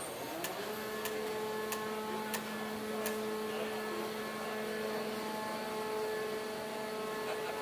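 Machine hum: a steady tone with several pitches glides up about half a second in, then holds steady, with a few sharp clicks over it in the first few seconds.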